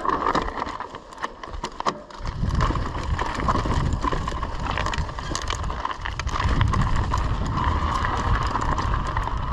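E-mountain bike ridden over a rocky, gravelly trail: tyres crunching and the bike rattling and clicking over stones, with a steady whine under it. Wind rumble on the microphone grows from about two seconds in.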